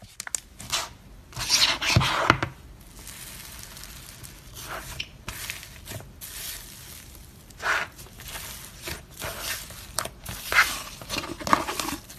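Slime being squeezed, stretched and pressed by hand: an irregular run of sticky crackling, popping and tearing noises, loudest about two seconds in.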